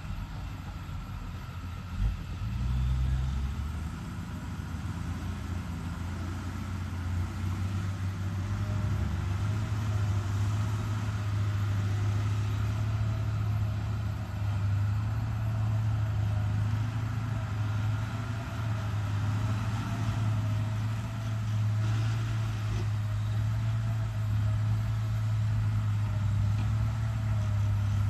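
Hyundai HX210HD excavator's diesel engine running steadily, growing louder about eight seconds in, with a single short knock about two seconds in.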